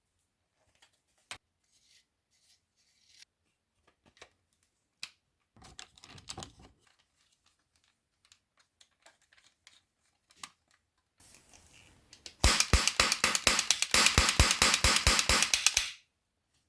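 Toy Skorpion VZ cap gun, first handled with light scattered clicks and a brief rustle, then fired in a fast string of sharp cap pops, about six a second for about three and a half seconds, starting a little past two thirds of the way in.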